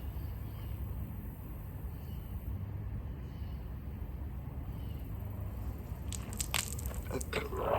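A bottle of Sprite being chugged without stopping: a low steady rumble with little else, then near the end a run of crackling, crunching sounds.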